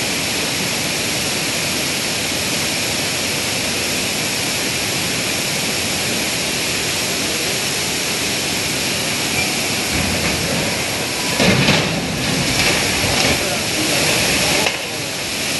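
Steady roar of a river in flood, rushing water filling the sound. About eleven seconds in comes a sudden louder burst with a deep rumble, then a few seconds of louder, uneven rushing that cuts off sharply near the end.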